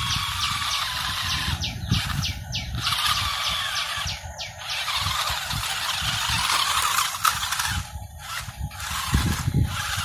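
Small electric motors of toy remote-control vehicles whining at high pitch, cutting out and starting again several times as the throttle is pulsed.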